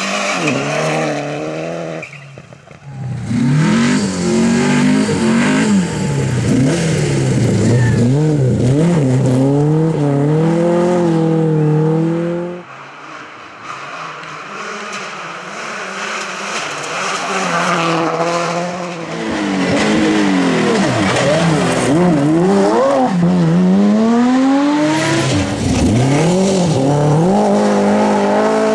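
Rally cars driven flat out on gravel stages, one after another: their engines rev up and fall back again and again through gear changes, with loose gravel spraying from the tyres. The sound changes suddenly twice as one car gives way to the next; among the cars are a Mitsubishi Lancer Evolution and a Subaru Impreza, both turbocharged four-cylinders.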